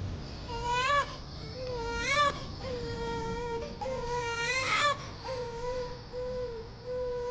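Newborn baby crying in a run of long, high wails, each ending in a short upward break in the voice.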